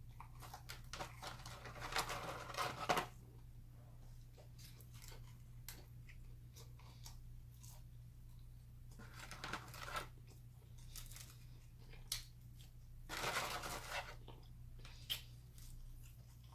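Close-miked eating and food-handling noises: rustling, crackling and crunching in three bursts about one to three, nine and thirteen seconds in, with scattered small clicks between them over a low steady hum.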